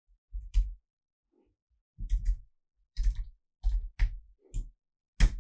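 Computer keyboard keys and mouse buttons pressed in a few irregular clicks and taps, some in quick pairs, each with a dull knock carried through the desk.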